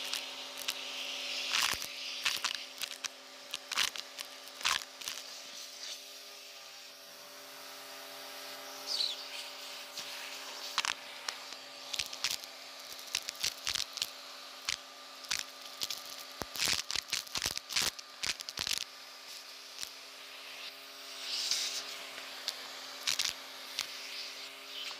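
Vacuum cleaner running steadily with a crevice tool, sucking up a 'chunky crunch' mix of buttons, beads, sequins and grit from a rug. The hard pieces click and rattle as they shoot up the nozzle, over the motor's steady hum, with the clicks coming thickest past the middle.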